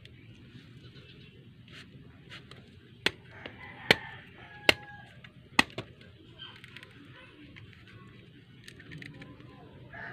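Four sharp chops of a bolo knife blade, about one every 0.8 seconds, starting about three seconds in.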